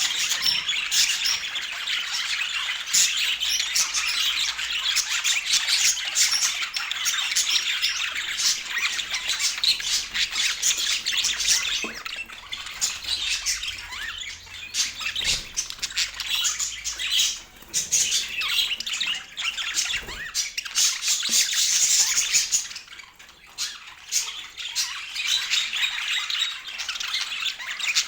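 Many birds chattering and squawking in a dense, continuous mass of quick high calls, thinning out briefly twice in the second half.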